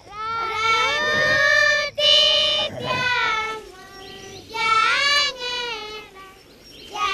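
Children's voices singing a high chant in long notes that slide up and down in pitch, several voices overlapping at times, with brief pauses between phrases.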